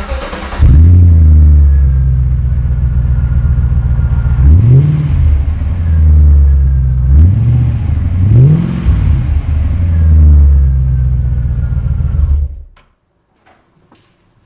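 Audi A8 4.2 quattro's V8 on its stock exhaust, starting up with a flare of revs, then idling with a deep, steady burble. It is blipped three times in the middle, each rev rising and falling back quickly, and the sound cuts off suddenly near the end.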